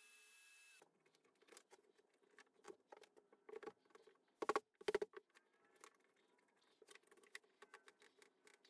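Faint clicks, knocks and scraping as the carved wooden column is unclamped, turned and clamped down again on the CNC router bed, with two louder knocks about halfway through.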